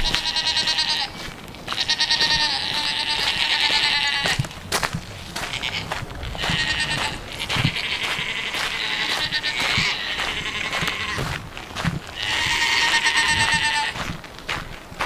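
Goats bleating: a string of about five long, quavering calls, each lasting one to three seconds, with short pauses between them.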